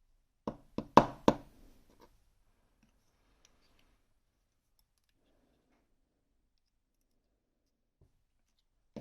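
Four quick, sharp metallic clicks in the first second and a half, then a few faint ticks and near silence: small parts of a BKS lock cylinder knocking against a hard surface as the lock is taken apart.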